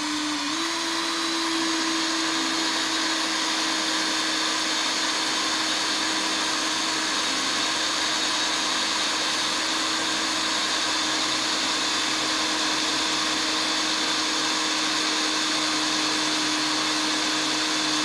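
Cordless drill running with a small bit, drilling out the burr side of a copper rivet through a leather stirrup strap. The motor rises a little in pitch just after it starts, then holds one steady pitch.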